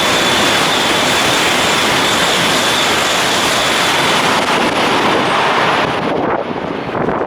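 Tohoku Shinkansen bullet train passing at high speed: a loud, dense rush with a steady high whine. The rush drops away about six seconds in, leaving gusty wind noise on the microphone.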